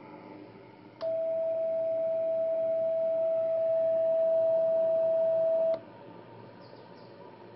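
Morse (CW) beat tone from a homebrew 40-metre CW receiver: the Si5351 DDS oscillator's 7.013 MHz carrier, keyed by a brass straight key, gives one steady single-pitched tone about a second in that lasts close to five seconds. It starts and stops with a sharp click, over the receiver's steady background hiss.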